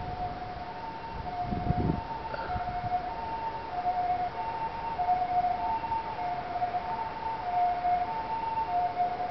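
An emergency vehicle's two-tone hi-lo siren, a high and a low note taking turns about every half second. A low rumble comes about a second and a half in.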